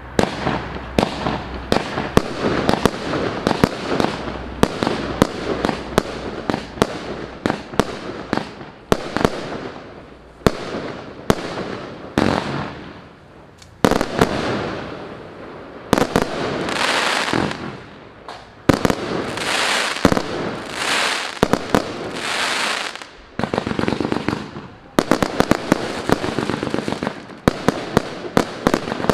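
180-shot FUROR FC180MK-1 'Pyro Storm' firework cake (20/25/30 mm tubes) firing in rapid succession: a dense run of sharp launch and burst reports, with a few longer, noisier bursts around the middle and rapid fire again near the end.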